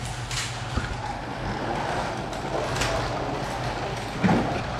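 1:32 Carrera Digital slot cars lapping a plastic track: steady electric-motor whine and track rumble, with a couple of brief louder passes as cars go by close.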